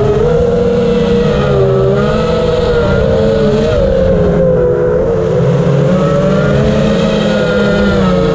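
FPV quadcopter's brushless motors whining in flight, their pitch wavering up and down with the throttle, over a steady low rush of air noise.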